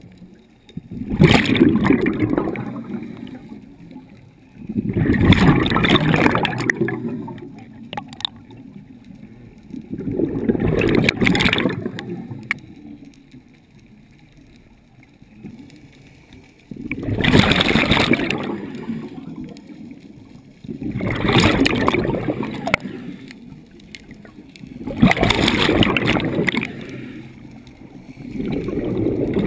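Scuba exhalation bubbles gurgling out of a diver's regulator and past the underwater camera in loud surges about two seconds long, roughly every four seconds, seven times, with a longer gap around halfway through.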